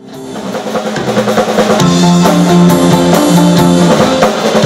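A live rautalanka band plays: twangy electric guitars over bass and a drum kit. The music fades in from silence over the first two seconds.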